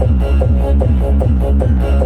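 Electronic dance music with a heavy, pulsing bass beat, about four beats a second, played loud through a 15-inch bass speaker cabinet.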